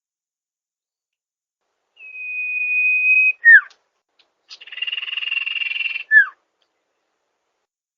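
Sirtu bird song played as a masteran recording. A long, steady, high whistle is held for over a second, then drops into a quick falling note. A buzzy rattle about a second and a half long follows, ending in another short falling note.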